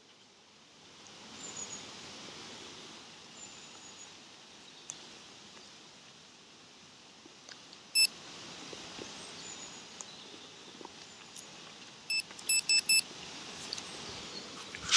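Electronic beeping: a single short high beep about halfway through, then a quick run of about five identical beeps. Behind it is steady outdoor ambience, and a brief loud rustle comes right at the end.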